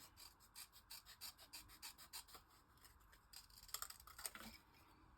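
Faint, quick scratchy strokes of hand work on paper: a rapid run of them, then a few more near the end.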